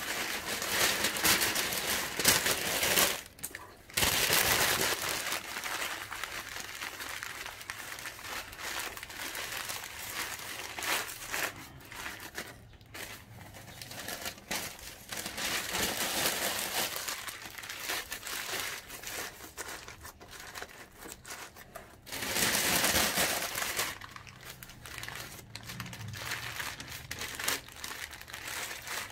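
Paper rustling and crinkling in uneven bursts as it is stuffed in around the potted plants to pack the sides of a basket, loudest near the start and again about 23 seconds in.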